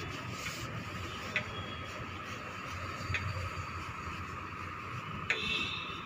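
A small round paintbrush stroking on fabric stretched in an embroidery hoop: faint rubbing with three light clicks, the sharpest near the end, over a steady background hum.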